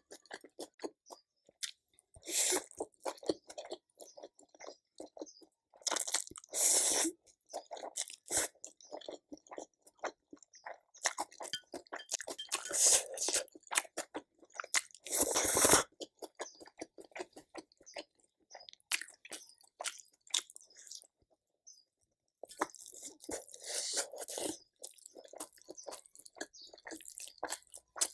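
Close-miked eating: a person chewing and crunching food in bursts, with short quiet pauses between mouthfuls and the loudest burst about halfway through.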